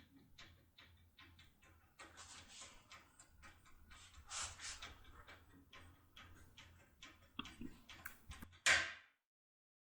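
Force tool being rocked and turned under load in a T250-type high-security cylinder lock: faint clicks and scraping crunches, with a louder crunch near the end before the sound cuts off. The crunching is a good sign that the tool is working the lock's internals toward opening.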